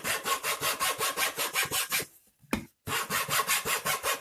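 A small metal-framed hacksaw sawing around a cardboard tube in quick, even rasping strokes, about six or seven a second, deepening a groove without cutting through the tube wall. The sawing breaks off briefly about two seconds in, with a single knock, then starts again.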